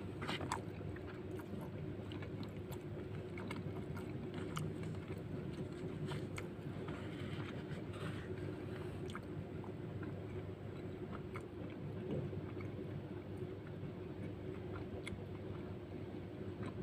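Close-miked eating sounds: a person chewing mouthfuls of nasi lemak with sambal and fried cow lung, with soft mouth clicks and a metal spoon scraping rice off a banana leaf, over a steady low hum.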